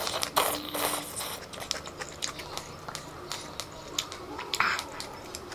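A person slurping a mouthful of noodles from spicy instant noodle soup, then chewing with many small wet clicks; a brief hiss comes about four and a half seconds in.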